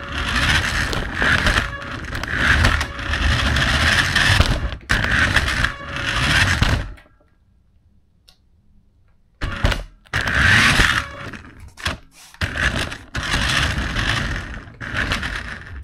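Toy RC car's electric motor and gears running in surges as it drives over a hard wooden floor, heard up close from a camera riding on the car. About seven seconds in it stops for two or three seconds, then starts off again in short bursts.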